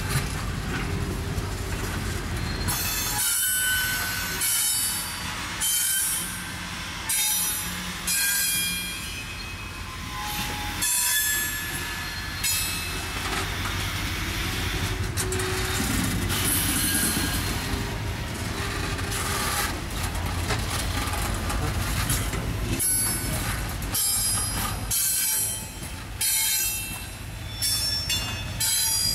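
Heavy-load freight cars rolling slowly past on multi-axle trucks, wheels squealing on and off over a steady low rumble.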